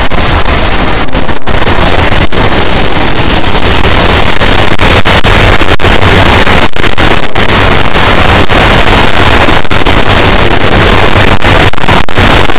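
Loud television static hiss, an even rushing noise across all pitches, cut by many very short dropouts.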